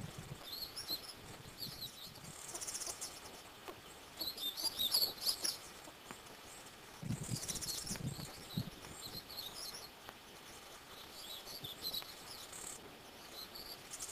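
High, thin bird chirps repeated throughout, with bursts of rustling about a third of the way in and again about halfway, the second with a few low thuds.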